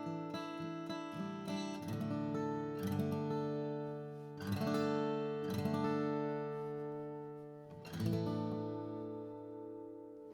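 Atkin The Nineteen small-bodied acoustic guitar, with mahogany back and sides, a baked Sitka spruce top and phosphor bronze strings, strummed with a pick. Chords are struck every second or two and left to ring out; the last one sustains for about two seconds.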